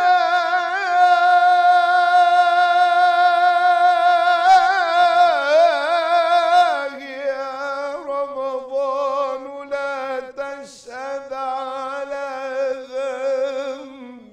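A man's unaccompanied voice singing an Islamic devotional chant (ibtihal). He holds one long note with wavering ornaments about four to six seconds in. About seven seconds in he drops to a lower, softer pitch and carries on in quick melismatic runs.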